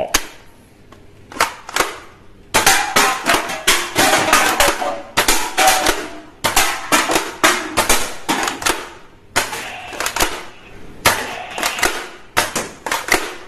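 Toy foam-dart blaster firing again and again: after two clicks about a second and a half in, runs of quick sharp snapping clicks follow one after another from about two and a half seconds in to near the end.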